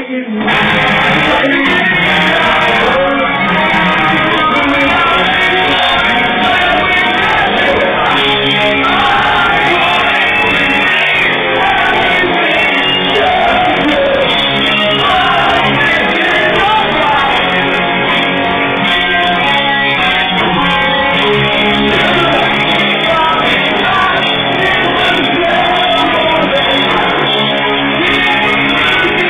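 Live rock band playing: electric guitars, bass and drums under sung and shouted lead vocals, loud and continuous. The music drops out for a split second at the very start, then carries on.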